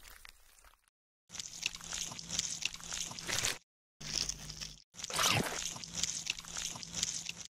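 Wet sloshing and splashing of shallow muddy water, in several short stretches broken by sudden cuts to silence.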